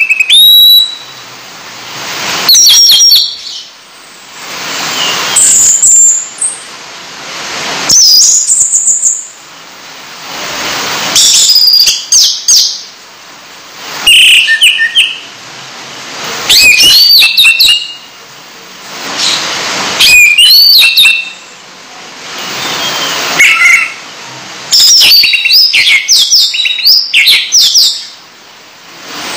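A caged bird chirping and warbling in short bursts about every three seconds, over a steady rush of running tap water.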